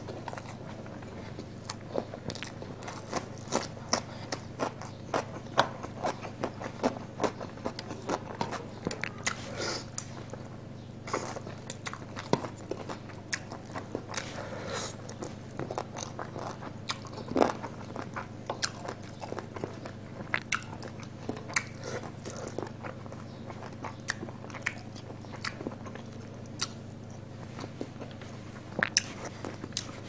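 Close-miked eating by hand: a person chewing mouthfuls of chicken curry and basmati rice, with many short sharp clicks and smacks throughout, over a steady low hum.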